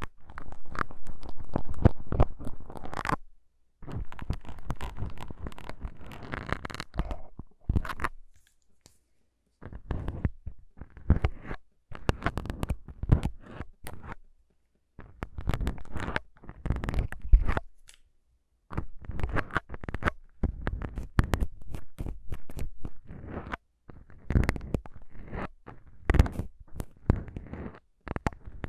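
Plastic syringes with needles worked close against the foam windscreens of a recorder's microphones: crackly scratching and clicking in bursts of a few seconds, with short pauses between.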